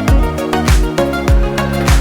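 Background music with a steady beat, a deep kick drum thumping about every 0.6 seconds under sustained chords.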